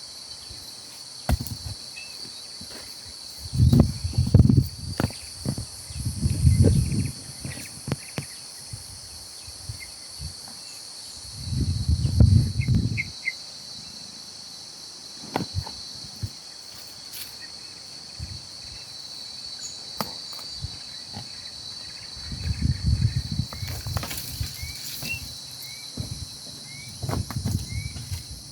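Steady high-pitched drone of insects, such as crickets, with a few faint chirps. Irregular low rumbling bursts come through several times, the loudest sounds here, along with scattered clicks.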